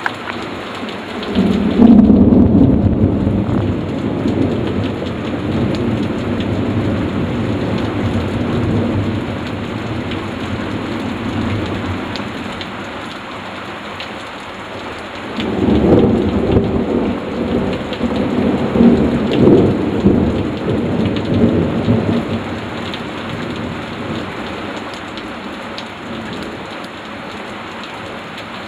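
Thunderstorm: steady heavy rain with two long peals of thunder, the first rolling in about two seconds in and the second about halfway through, each rumbling for several seconds before fading back under the rain.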